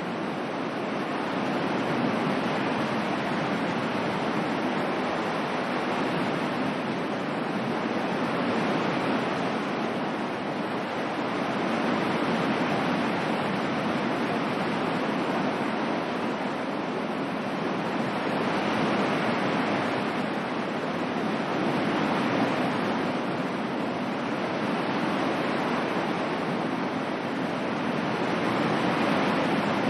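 Ocean surf: a continuous wash of waves that swells and eases gently every several seconds.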